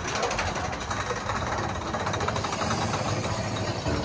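Roller-coaster mine train running along its track with a rapid, even clatter that gives way to a steadier rumble after about two seconds.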